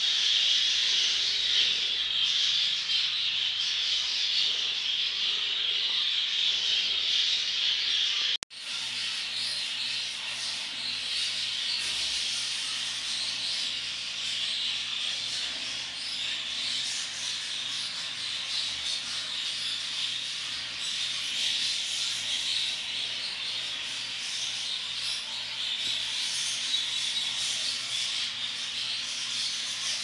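English budgerigars chattering and warbling steadily, briefly cut off about eight seconds in.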